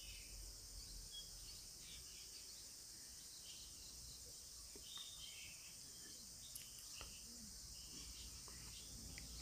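Near silence: a steady faint high hiss, with a few faint clicks.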